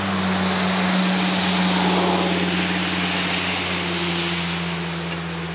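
Steady engine drone with a broad rushing noise, growing louder over the first two seconds and then slowly fading.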